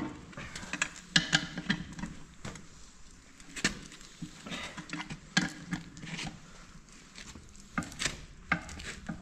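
Hand socket wrench working the bolts on a tractor wheel rim as they are loosened: scattered, irregular sharp metallic clicks and knocks.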